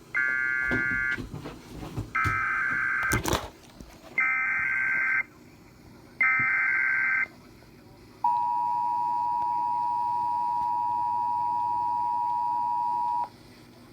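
Emergency Alert System tones. Four one-second bursts of warbling data tones, the SAME header, come about a second apart, with a sharp click between the second and third. Then a steady attention tone holds for about five seconds, announcing a severe thunderstorm warning.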